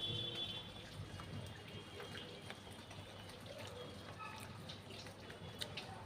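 Someone eating puri with vegetables: soft wet chewing and small mouth clicks and smacks.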